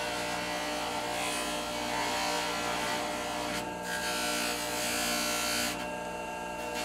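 Bench polishing motor running steadily with a small buff spinning on its tapered spindle, while a bar of Fabuluster buffing compound is pressed against the spinning buff, giving two stretches of rubbing noise over the motor hum, from about one second in and again from about four seconds to nearly six.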